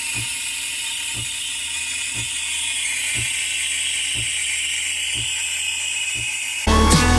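Background music: a soft, hissing electronic texture over a light kick drum about once a second. Near the end it cuts abruptly to a louder electronic track.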